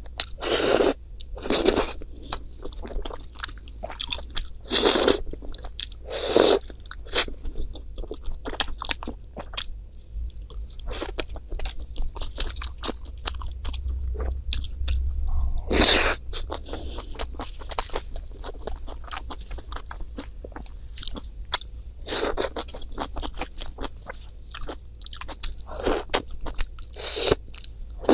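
Close-miked eating: chewing and crunching food, with irregular louder bites and wet mouth clicks throughout.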